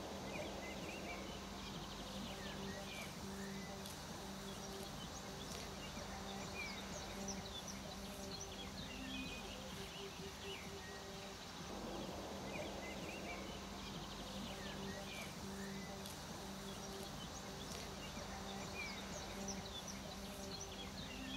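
Field ambience: small birds chirping throughout, over a low hum that pulses on and off. The background changes briefly about twelve seconds in.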